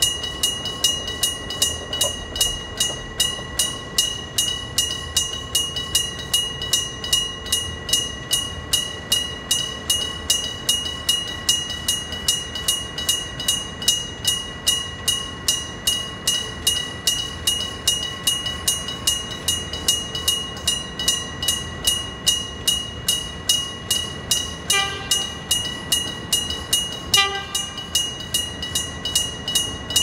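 Electric-bell (denshō-type) railway crossing warning bell, a real bell struck rapidly and evenly by an electric hammer, about three strikes a second, ringing steadily. Near the end come two short horn toots about two and a half seconds apart.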